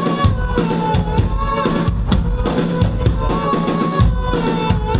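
Indie rock band playing live through an instrumental passage, the drum kit prominent with kick and snare hits over a bass line and a sustained melodic line.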